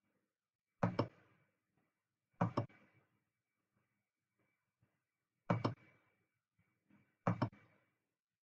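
Computer mouse clicking close to the microphone: four quick double clicks a second or two apart, with hardly any sound between them.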